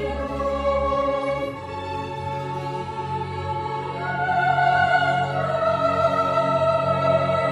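Background music in a slow choral, classical style, with long held chords; the bass changes about a second and a half in, and a higher, brighter part comes in about four seconds in.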